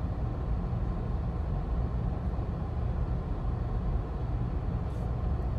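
Steady low background rumble with no speech, with a faint click about five seconds in.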